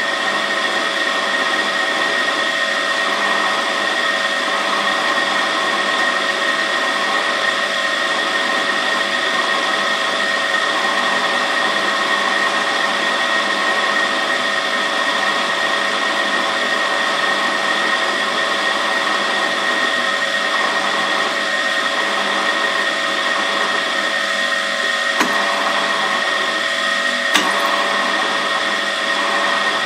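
Bench drill press running steadily with a high motor whine while a small bit is fed slowly by hand into a metal block, kept slow so the low-powered drill does not stall. Two short clicks near the end.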